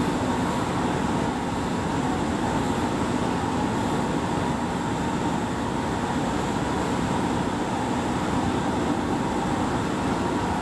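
Keihan 9000 series electric train standing at the platform, its onboard equipment giving a steady hum with a faint constant high tone.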